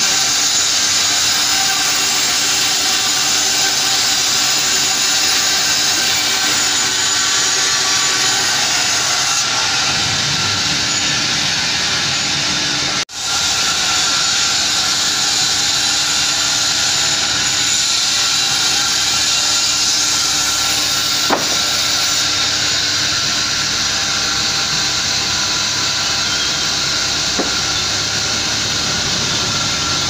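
A log band sawmill running, with a steady loud hiss and whine from the saw and its machinery as pine logs are fed through on the carriage. The sound drops out for a moment about thirteen seconds in.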